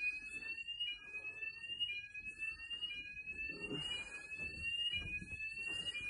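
Fire alarm sounding a repeating rising whoop, about one upward sweep a second, each restarting low. Low rustling and bumps of movement are heard under it.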